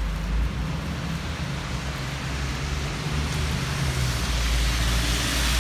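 Traffic on a rain-wet street: engines running low and tyres hissing on the wet road, the hiss growing louder near the end.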